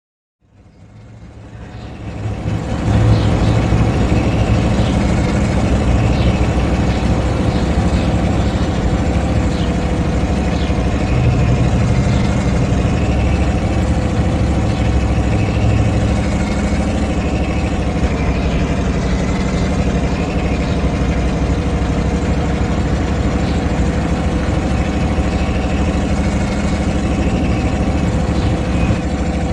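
Diesel truck engine running at a steady idle. It rises over about the first three seconds, then holds an even, unchanging note.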